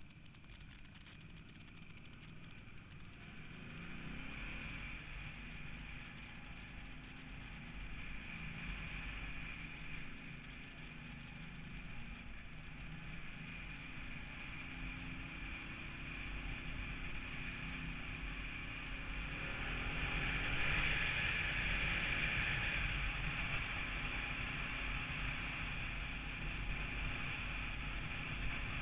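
Motorcycle engine running and accelerating, its pitch rising twice: a few seconds in and again about two-thirds through. Wind and road noise build with it, loudest after the second rise.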